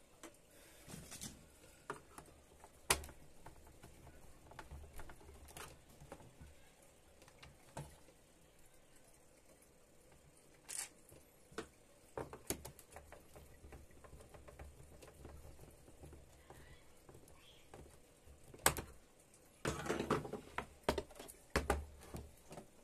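Scattered small clicks, taps and scrapes of an induction cooker's plastic casing and test leads being handled on a workbench. Near the end comes a denser run of knocks and rustling as the cooker is turned over onto its glass top.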